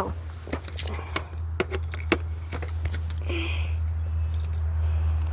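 Scattered clicks and knocks of a screwdriver and hands working on the plastic housing of an electric string trimmer, trying to free a stuck screw, over a steady low hum.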